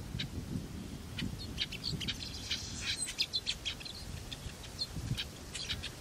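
Small birds chirping in quick, short, high notes, thickest between about two and four seconds in, over a low rumble.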